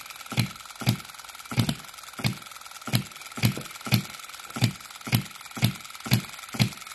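Scale model four-stroke petrol hit-and-miss engine running at a slow governed speed, firing with a sharp pop about twice a second. The owner says the ignition is firing just before top dead center rather than just after.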